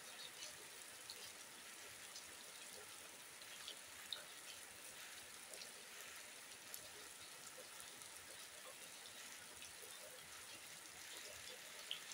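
Faint, steady rain falling on a wet yard and the trees around it, with scattered drops ticking; two drops stand out, a little after four seconds in and near the end.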